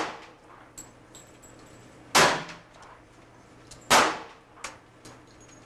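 Handgun shots at an indoor shooting range: two loud shots a little under two seconds apart, each ringing briefly off the range walls, with a fainter crack shortly after the second.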